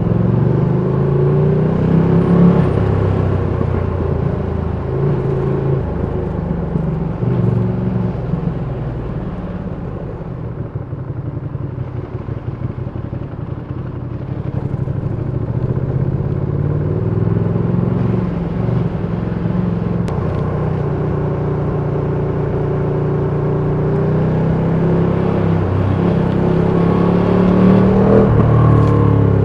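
Ducati Panigale V2's 955 cc V-twin engine running as the bike is ridden, its revs rising and falling with throttle and gear changes. It drops to a quieter, uneven low running midway, then builds again with rising revs near the end.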